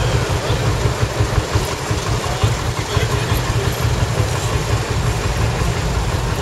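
Several diesel tractors idling together, a steady low rumble.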